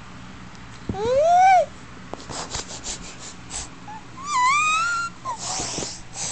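A dog whining in two high squeals: the first about a second in rises and falls in pitch, the second around four seconds in wavers and climbs. A short breathy noise follows near the end.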